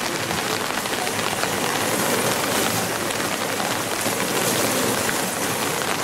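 Steady rain falling on a wet paved road, an even hiss with no break.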